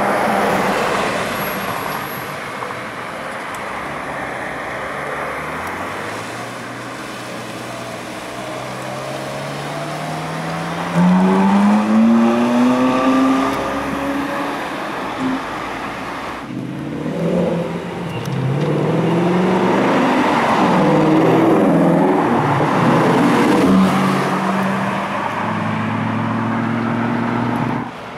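Ferrari 458's 4.5-litre V8 accelerating hard, its note climbing steadily through the revs to a loud peak about halfway through. Then come more revving pulls with several engine notes overlapping. The sound ends abruptly.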